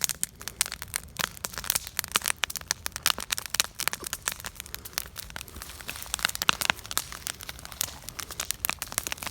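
Campfire crackling: burning wood giving off a dense, irregular stream of sharp pops and snaps.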